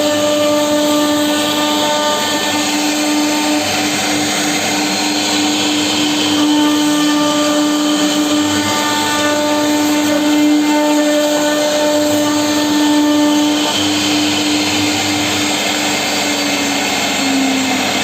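CNC router spindle running and cutting wood: a steady high whine over rough cutting noise. The pitch wavers and dips slightly near the end.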